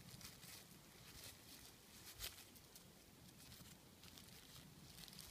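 Near silence with faint crackles of the plastic air-layering wrap being handled at the base, and one sharper click a little over two seconds in.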